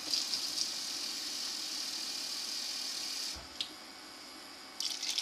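Water running from a kitchen tap, a steady hiss that is shut off about three seconds in, followed by a few light clicks near the end.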